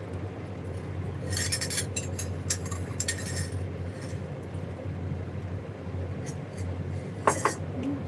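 Dishes and glassware clinking as they are handled on a kitchen counter: a run of clinks from about a second in to past the three-second mark, and another near the end, over a steady low hum.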